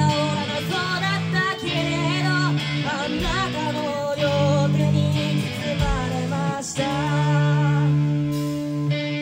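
Live rock band playing: electric guitar, bass guitar and drums, with a sung vocal line over most of it. The voice drops out about two-thirds of the way through, leaving held, strummed guitar chords over the band.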